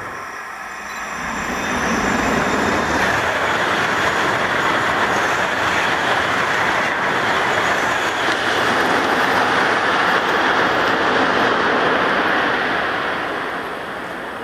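A high-speed train passing at speed over a viaduct: a steady rushing roar of wheels and air with no distinct tones. It swells in about two seconds in, holds, and fades away near the end.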